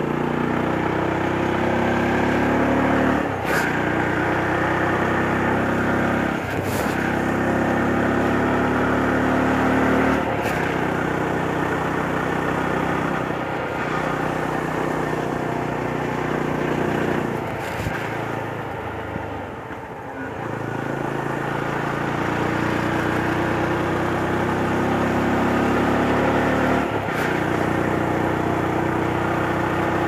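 Yezdi Roadster's single-cylinder engine pulling the bike uphill, its note rising in pitch, with short breaks about five times as the rider shifts up. The engine eases off for a moment about two-thirds of the way in, then pulls again.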